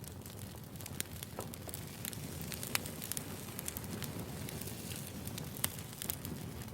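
Firewood burning, crackling: irregular sharp pops and snaps over a low, steady rush of the fire.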